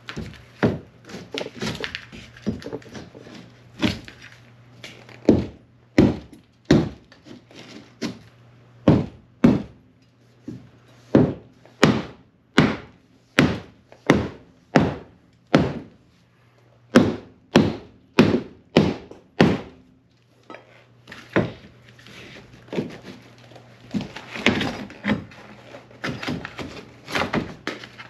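Pry bar striking a water-damaged basement wall to break out a scored section, a long series of dull knocks. They come irregularly at first, then settle into a steady beat of about one and a half blows a second, then turn irregular again after a short pause near the end.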